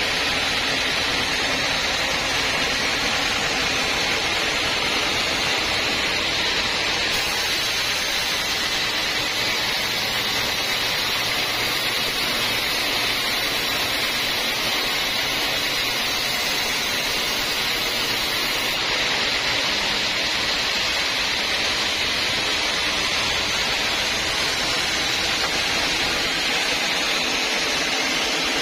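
Homemade band sawmill running steadily, its blade cutting lengthwise through a teak beam with an even, unbroken hiss.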